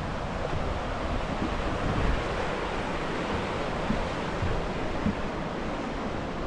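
Steady rush of a river in the gorge beneath a wooden footbridge, with wind buffeting the microphone. A couple of soft knocks come about four and five seconds in.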